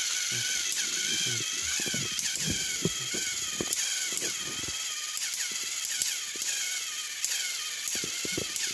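Two battery-powered Thomas & Friends toy engines, Thomas and Murdoch, straining against each other on plastic track: a small-motor whine whose pitch wavers up and down a few times a second, with irregular sharp clicks.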